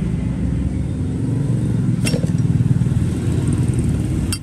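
A steady low engine-like rumble, with one sharp click about two seconds in, the click of a Zippo lighter being handled.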